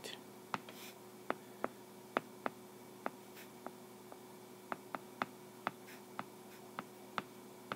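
Sharp, irregular clicks of handwriting on an iPad's glass touchscreen, about twenty scattered taps as an algebra expression is written out, over a faint steady hum.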